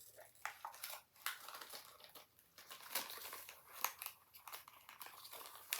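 Packaging of a toy surprise ball crinkling and tearing as it is opened by hand, in quick irregular crackles.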